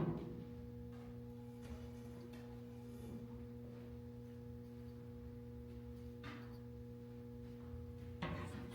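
A steady low electrical hum, with a sharp knock at the start and a few faint knocks and clicks as stand parts are handled during assembly.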